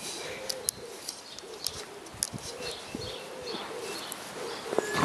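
A dove cooing: a run of soft, low, repeated coo notes, with faint short bird chirps above.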